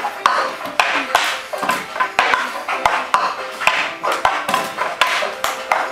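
Hand claps and hollow knocks of plastic cups tapped and set down on wooden desks, in a quick rhythmic cup-game routine played by two children.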